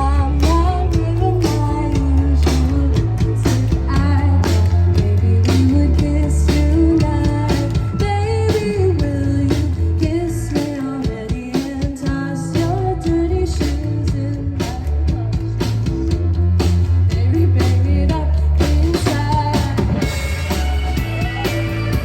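Indie rock song, a sung melody over a steady drum beat, bass and guitar.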